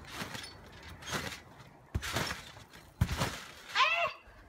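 Someone bouncing on a backyard trampoline: a run of landings on the mat, each a short thump and rustle, about a second apart. Near the end comes a short vocal cry.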